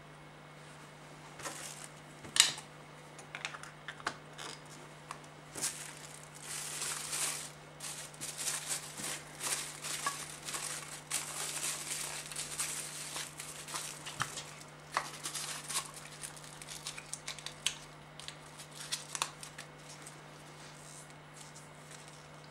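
Objects being handled: irregular crinkling, rustling and clicks, busiest in the middle, over a faint steady hum.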